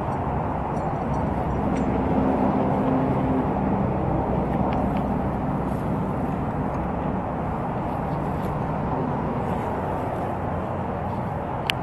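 Steady low rumbling outdoor noise, with a faint hum for a couple of seconds early in the stretch and a single sharp click near the end.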